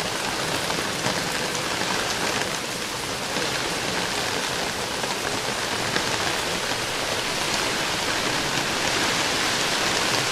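Rain falling steadily: an even hiss dotted with tiny ticks of individual drops.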